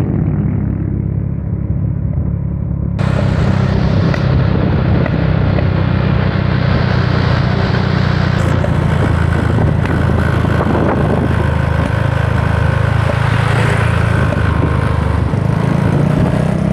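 Motor vehicle engine running steadily with a strong low hum, heard from a moving vehicle, with a rush of wind and road noise that jumps up suddenly about three seconds in.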